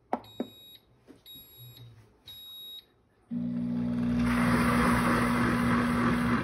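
Pampered Chef cooking blender beeping three times about a second apart, then its motor starting up loud with a steady hum and churning the wash water for about three seconds before cutting off, at the start of its heated wash cycle.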